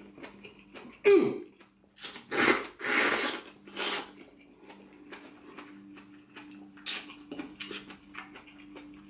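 A person slurping noodles in four quick, loud hissing bursts about two to four seconds in, then chewing quietly with small clicks of chopsticks against a bowl, over a faint steady hum.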